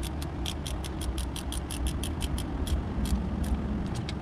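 Rapid metallic clicking of a ratchet wrench, about six to eight clicks a second, as bolts are run down snug; the clicking thins out about three and a half seconds in. A steady low hum runs underneath.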